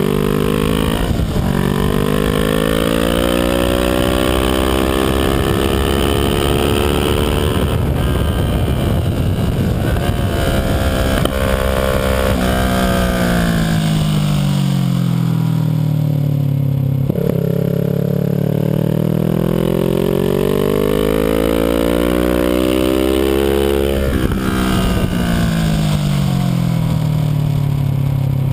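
Kawasaki Ninja 650R's parallel-twin engine at track speed, its pitch climbing and falling in long sweeps as the throttle is opened and rolled off through the corners, with wind rushing over the fairing-mounted camera.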